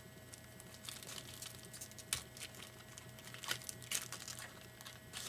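Foil wrapper of a trading-card pack crinkling and crackling as it is torn open and handled: an irregular run of crackles, loudest about two seconds in and again near four seconds, over a faint steady electrical hum.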